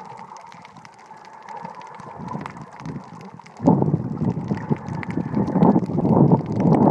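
Underwater sound picked up by a camera held under water while snorkeling. A faint steady tone sits over a quiet wash, then about three and a half seconds in a much louder, uneven rushing of water against the camera takes over.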